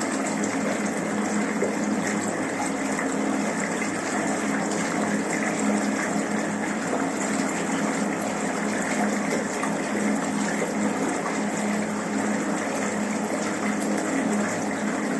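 Water gushing steadily from the tap into a bathtub as it fills, an unbroken rush with a steady low hum underneath.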